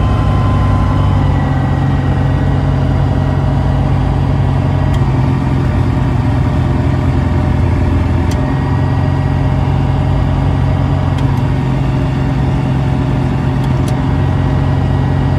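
Ultralight aircraft's piston engine running steadily, heard from inside the closed cockpit, during the ignition cutoff check on the key switch. A few faint clicks sound over it.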